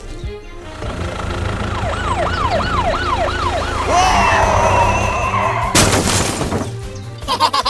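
Police siren sound effect yelping in quick rising-and-falling whoops, about three a second, over a low musical bed. About six seconds in comes a short, loud crash as the toy police truck tips into the hole.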